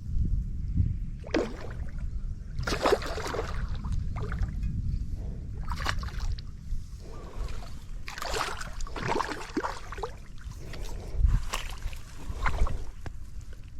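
Water sloshing and splashing in irregular bursts, over a steady low rumble.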